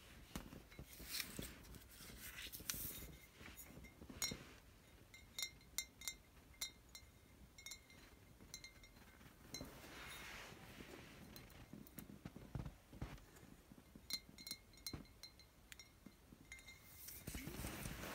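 Glass wine bottles being tapped and clinking in a wooden rack, in quick clusters of light taps that each ring briefly and high. Soft rubbing and sliding noises come in between as the bottles are handled.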